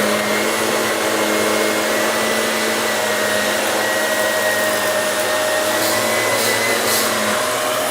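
Shark Navigator Lift-Away Deluxe (NV360) upright vacuum cleaner running steadily on carpet while picking up flour, a constant motor whine over a rush of suction.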